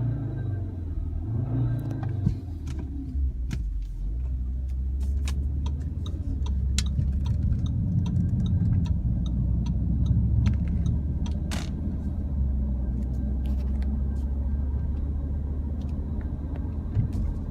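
Steady low road and engine rumble inside an Audi RS Q3's cabin while driving, with many short clicks and rattles scattered through it: the rattling the owner traces to the air-conditioning duct.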